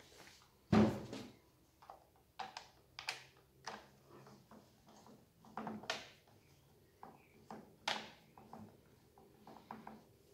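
Husqvarna chainsaws being handled and set down on a wooden workbench: a heavy thump about a second in, then scattered knocks and clicks of the plastic housings and metal bars.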